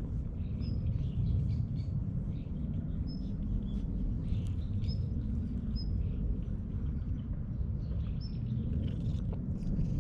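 Domestic cat purring steadily while being stroked, with short high bird chirps every second or two.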